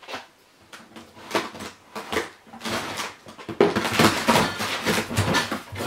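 Cardboard box being opened by hand: a few light clicks and scrapes, then from about two and a half seconds in a dense run of packing tape ripping and cardboard flaps rustling and scraping.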